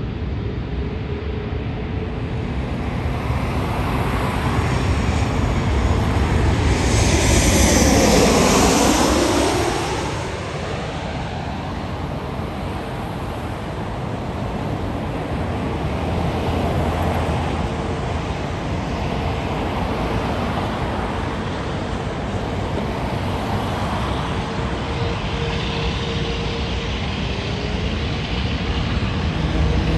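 Airbus A380-841's Rolls-Royce Trent 970 jet engines running at taxi power: a steady rumble with a faint steady whine. About six to ten seconds in, something passes close by, swelling to the loudest point and fading again within a few seconds.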